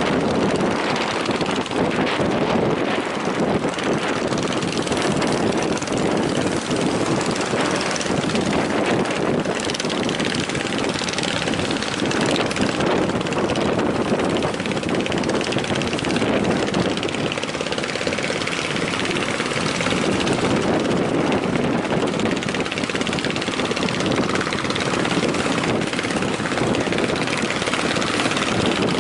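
Strong wind buffeting the microphone over the rush of surf: a steady, loud roar that swells and eases a little without stopping.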